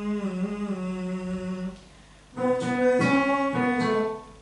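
Singing in a vocal lesson: a voice holds one long note that sags slightly in pitch, then after a brief pause a louder run of held notes that change pitch every half second or so, with instrumental accompaniment.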